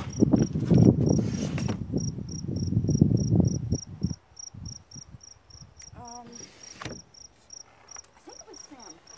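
Steady insect chirping: a high note repeated evenly about four times a second. For the first four seconds a loud low rumbling on the microphone covers it, and a short pitched call sounds about six seconds in.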